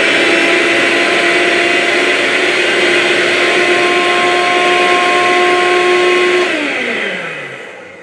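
Hoover Cyclonic corded stick vacuum (SH20030) running in its bare-floor mode with the brush roll off: a steady motor whine over a rush of air, pretty quiet for a vacuum. About six and a half seconds in it is switched off and the motor winds down with a falling whine.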